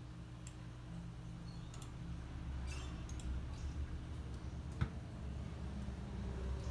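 A few scattered light clicks, the sharpest nearly five seconds in, over a steady low hum.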